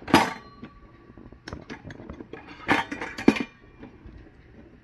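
Metal camping cookware pieces clinking and knocking together as a nested pot set is taken apart. There is a sharp clink at the start with a brief ring, then a few more knocks about three seconds in.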